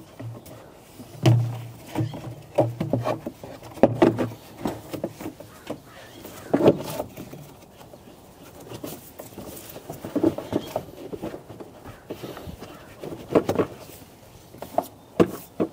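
The 2003 GMC Yukon's plastic air cleaner outlet duct and rubber intake bellows are being handled and pushed back into place by gloved hands. Irregular knocks, clicks and rustles of plastic and rubber sound throughout, with several louder knocks among them.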